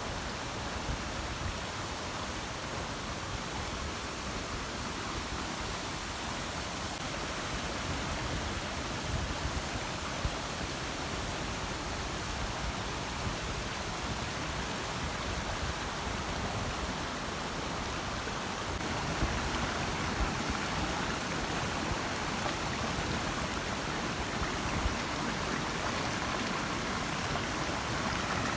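Water of the Chenku Waterfall falling and rushing into its pool: a steady rush that grows a little louder about two-thirds of the way through.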